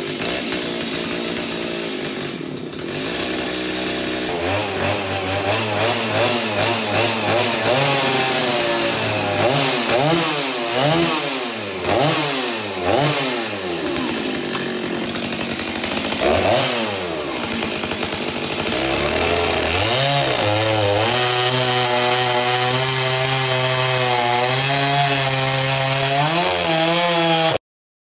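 Stihl MS 290 two-stroke chainsaw running: idling at first, then revved up and down several times, then held at a steady higher speed until the sound cuts off suddenly near the end.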